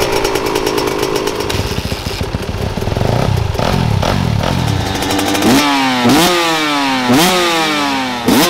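Yamaha YZ125 two-stroke dirt bike engine running with a freshly fitted exhaust: it idles unevenly, then, about five and a half seconds in, is blipped four times, each blip a sharp jump in pitch that falls back.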